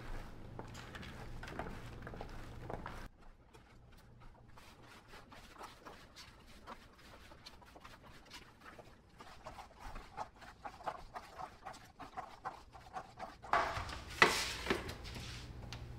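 Chopped vegetables being tossed in oil by hand: soft, irregular clicks and rustles, with a few louder knocks near the end.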